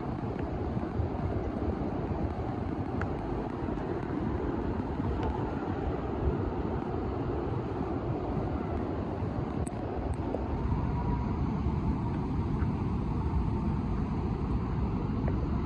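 Waterfall pouring down with great force: a steady rushing noise of falling water, heaviest in the low end.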